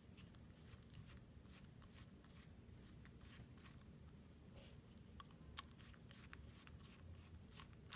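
Near silence with faint, scattered small clicks and taps of metal parts as the opened lock is handled, one slightly louder tick about five and a half seconds in.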